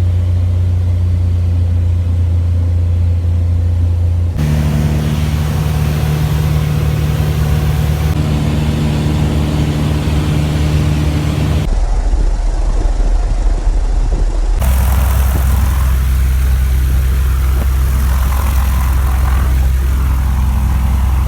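A vehicle engine running steadily and loudly, heard in several edited clips that cut abruptly from one engine pitch to another.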